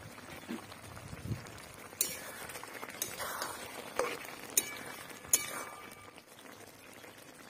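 Metal ladle stirring a thick curry in a metal cooking pot, clinking against the pot several times, a few of the clinks ringing briefly.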